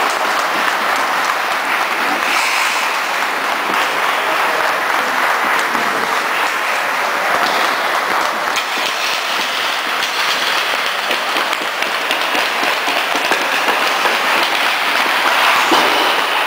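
Spectators clapping steadily, a continuous dense rattle of applause.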